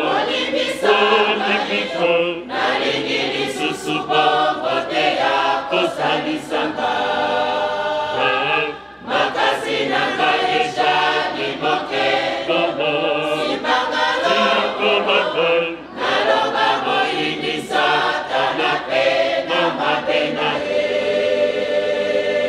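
Church choir singing in full voice, in long phrases broken by two short pauses about 9 and 16 seconds in.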